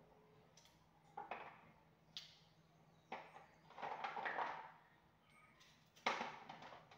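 Knife cutting up coconut held in the hand: a handful of short cuts and scrapes, one of them longer about four seconds in, the sharpest near the end.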